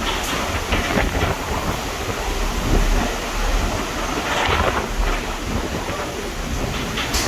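Stormy wind buffeting the microphone in gusty low rumbles, over the steady rush of rough sea and spray.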